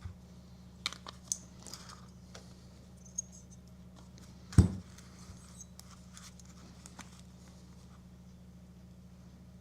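Small clicks, taps and light scrapes of metal parts and tools being handled on a workbench, with one louder knock about four and a half seconds in, over a steady low hum.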